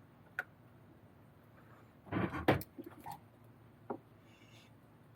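Handling noise from small RC kit parts being worked by hand: a sharp click, then a brief rattle a little after two seconds in followed by a few light clicks, and one more click later.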